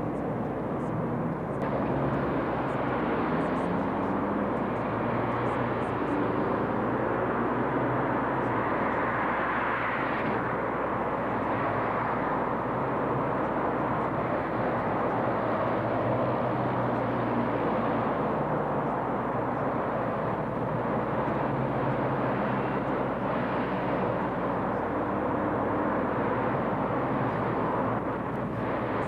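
Steady city street noise: a continuous rumble of traffic.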